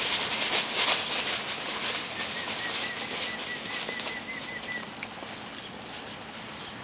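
Dry fallen leaves and undergrowth crunching and rustling as dogs run through them, loudest in the first two seconds or so and then fading. A faint run of short, high chirps repeats quickly in the background from about two to five seconds in.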